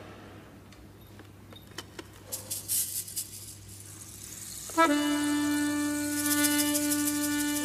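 Quiet stretch with a few faint clicks, then about five seconds in an accordion enters sharply and holds a sustained chord, the opening of a recorded chamamé piece.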